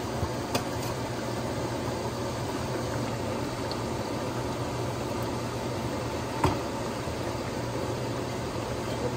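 A pan of goat stew simmering with a steady bubbling hiss over a low steady hum. A few sharp knocks come as diced potato is added from a cutting board, the loudest about six and a half seconds in.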